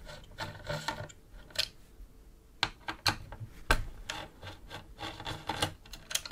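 Hand screwdriver unscrewing the screws of an AM5 motherboard's stock plastic CPU retention bracket: an irregular run of small clicks and scrapes as the tip turns in the screw heads.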